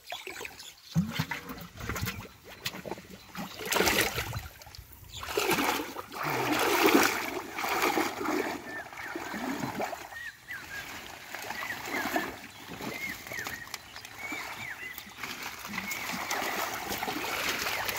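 Muddy water splashing and sloshing as a person wades and gropes with his hands through shallow water and water hyacinth, in irregular surges, the loudest about four and seven seconds in.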